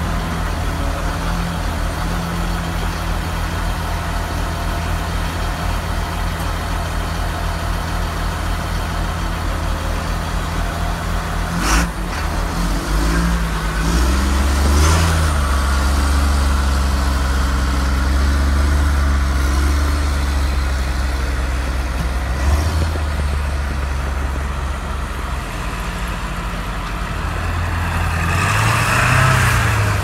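Truck engine heard from inside the cab, idling with a steady low hum. A single sharp knock comes about a third of the way in. The engine then runs louder as the truck moves off, and rises again near the end.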